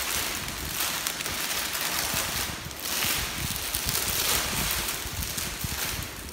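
Clear plastic packaging bags crinkling and rustling as they are handled up close, in uneven surges.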